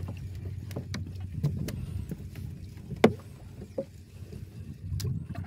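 Spinning fishing reel being cranked to bring in a fish, with scattered clicks and knocks over a steady low rumble of water and wind around a small boat; one sharp knock about three seconds in.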